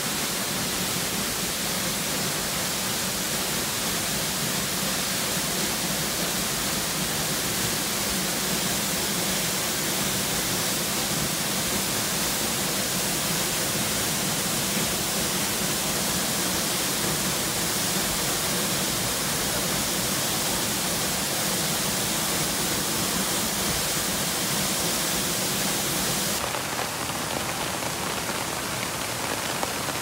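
Hossawa Falls, a tall waterfall in high flow after rain, pouring into its plunge pool: a loud, steady, even rush of water. Near the end it becomes slightly quieter and less hissy.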